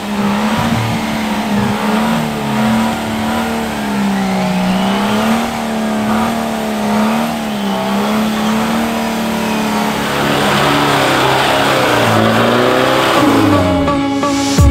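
Off-road 4x4 competition truck's engine revving up and down, its pitch rising and falling every second or two as it claws through deep mud.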